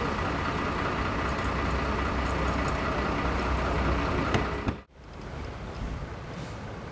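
Steady low rumble of an idling vehicle engine with general background noise; about five seconds in it cuts off abruptly and a quieter, more distant hum follows.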